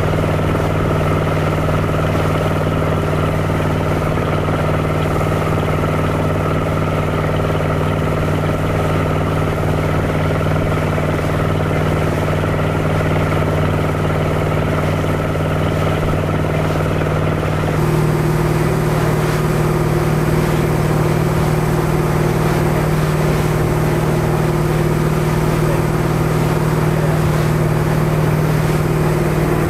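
Lyman boat's inboard engine running steadily under way, a constant drone. About two-thirds of the way through, its tone shifts abruptly to a new steady pitch.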